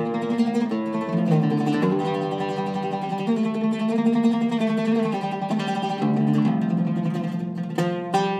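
Oud with a cedar soundboard, Indian rosewood back and Kröschner strings, played solo with a plectrum (risha): a melodic run of plucked single notes, some held and ringing.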